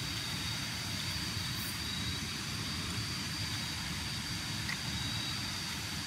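Steady jungle night ambience: a low, even rumble under a continuous high-pitched insect drone.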